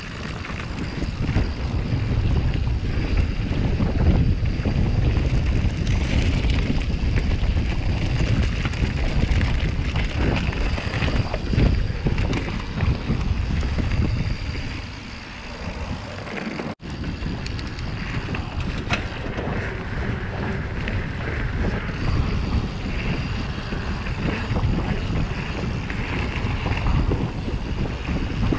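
Wind buffeting the microphone over the rumble of a Yeti SB150 full-suspension mountain bike being ridden over rough ground, with frequent short knocks and rattles as it hits bumps.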